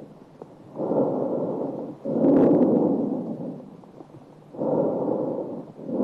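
Normal tracheal breath sounds heard through a stethoscope: a hollow rushing of air on each breath in and out. There are about two full breaths, each in-breath running straight into the out-breath, with a pause of about a second between breaths.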